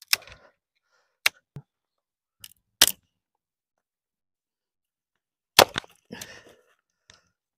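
Dry dead branch being snapped apart by hand: a series of sharp wooden cracks spread over several seconds, the loudest about three seconds in and again near six seconds, with twigs rustling after some of the snaps. The wood cracks cleanly because it is dry.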